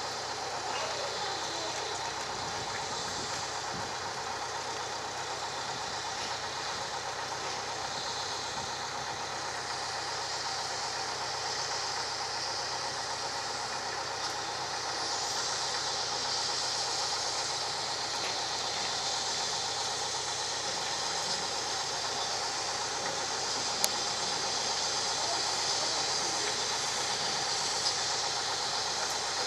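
GWR 57xx class pannier tank steam locomotive hissing steam as it creeps slowly along, the hiss growing a little louder in the second half. Two sharp clicks come near the end.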